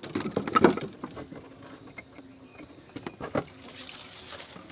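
Rustling and clattering of gear being handled, loudest about half a second in, with a couple of sharp knocks a little after three seconds.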